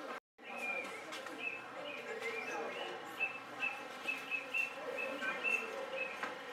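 Birds chirping in short, repeated calls over a low background murmur of room noise. The sound cuts out completely for a moment just after the start.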